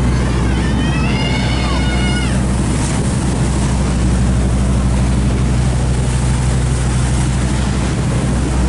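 Boat engine running with a steady low drone, under a hiss of wind on the microphone. A brief high-pitched cry rises and falls over the first two seconds or so.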